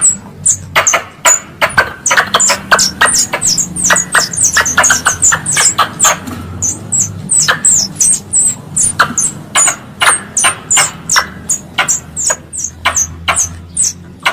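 Wild squirrel calls used as a hunting lure: a rapid run of sharp, high chirps, several a second, with only brief pauses.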